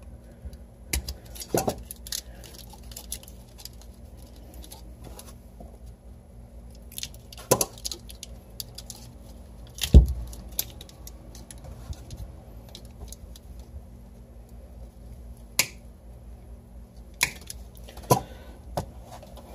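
Plastic zip ties being snipped with hand cutters and a compressor's wiring being pulled loose: scattered sharp clicks and snaps, the loudest about halfway through, with rustling of cable in between.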